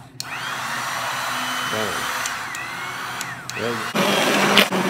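Electric mixer running in cake batter in a plastic bowl, a steady motor whine with the beater churning the mix. It cuts out briefly about three and a half seconds in, then starts again louder.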